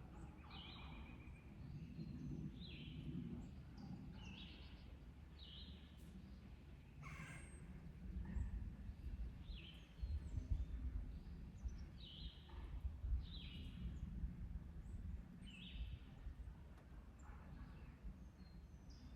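A bird calling over and over, short high calls every second or two, over a faint low rumble.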